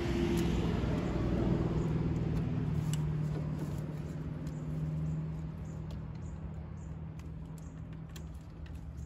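Steady low engine hum of a nearby vehicle that swells for a few seconds and then eases off, with a few light clicks of pliers working a small plastic clip.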